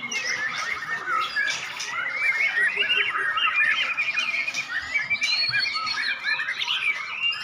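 White-rumped shama singing a continuous, rapid song of varied chattering and whistled notes.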